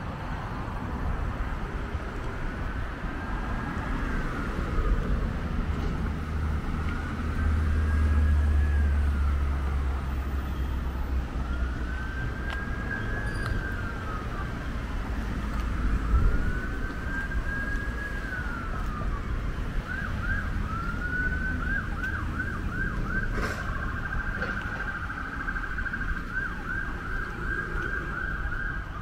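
Emergency vehicle siren sounding a slow wail, each rise and fall lasting about four seconds, then switching about two-thirds of the way through to a fast yelp. Road traffic rumbles underneath, loudest about a third of the way in.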